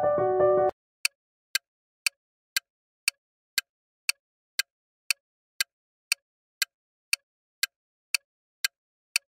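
Countdown timer sound effect: a short chime, then steady ticking at about two ticks a second.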